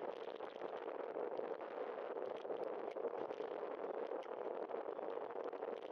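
Steady rushing noise of a bicycle riding on wet pavement, tyre hiss mixed with wind on the microphone, with scattered faint ticks.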